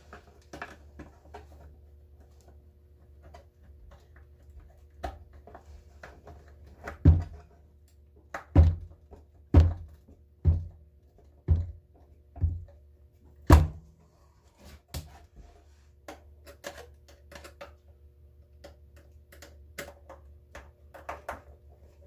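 Metal hand tool worked at the piano hinge of a plywood boat-seat box lid: small clicks and scrapes throughout, with a run of seven heavy knocks about a second apart midway through.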